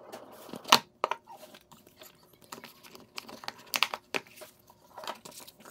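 A cardboard product box and its packaging being opened and handled: irregular clicks, taps and crinkling, the sharpest snap about three-quarters of a second in.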